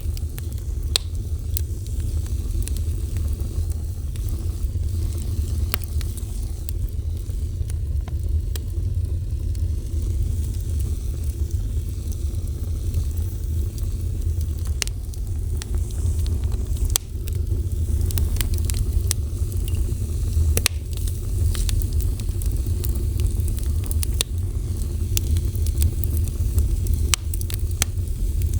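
A fire burning, with irregular sharp crackles and pops scattered throughout over a steady low rumble.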